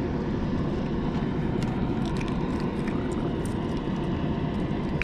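Steady low drone of the lakeside power plant running, with a few faint ticks in the middle.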